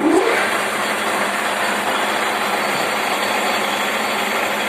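16E16KP lathe running steadily under power, its motor and gearbox giving an even mechanical whirr with a low hum.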